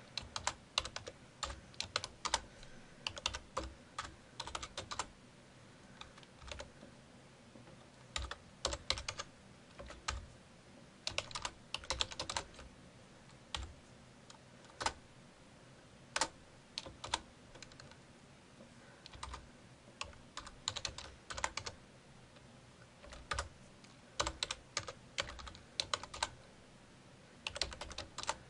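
Computer keyboard typing: irregular runs of keystrokes with pauses of a second or two between them.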